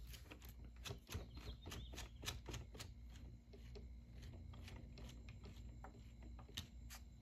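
Light clicks and taps of small plastic Lego pieces being handled, many in the first three seconds and a few near the end, over a faint steady hum.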